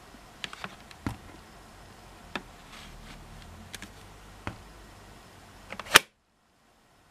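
Makita 18V lithium-ion battery being slid onto a cordless handheld vacuum's battery rails, with a few small plastic clicks, then one sharp, loud click about six seconds in as the battery latches into place.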